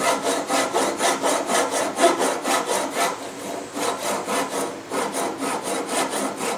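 Japanese single-edge pull saw (kataha noko giri) cutting through a hardwood tenon and wedge in quick, even strokes, trimming them flush with the mallet head.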